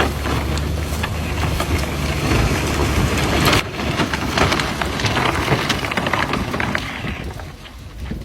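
A vehicle engine running steadily, joined and then covered by a rushing, crackling clatter from about three and a half seconds in, which fades near the end.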